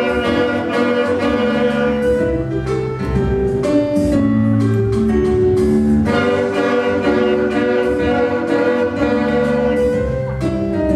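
Instrumental music: a melody of sustained notes moving over a lower accompaniment.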